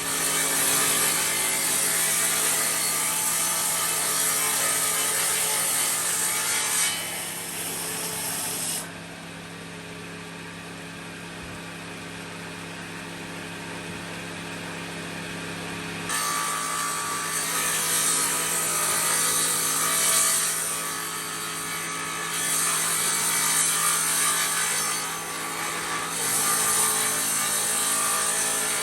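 Powered sawmill saw cutting through wood: a harsh rasping cut over a steady motor hum. The cutting noise drops away for several seconds in the middle, leaving the saw's motor running on its own, then starts again.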